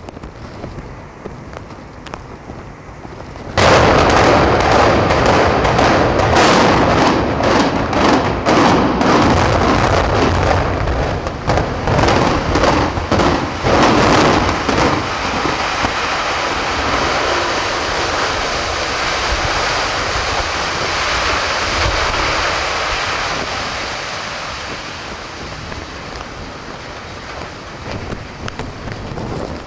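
Explosive demolition of a 379-foot reinforced concrete tower block. A sudden blast about three and a half seconds in starts a rapid volley of sharp detonations lasting around ten seconds, then a long rumble that slowly fades as the concrete structure collapses.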